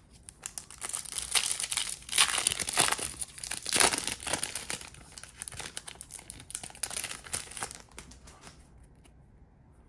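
A trading card pack's wrapper crinkling and tearing as it is opened, in a busy run of crackles from about half a second in that dies away near the end.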